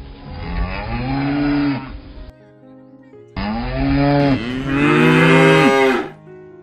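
A cow mooing twice, two long loud calls with a gap of about a second between them, over background music.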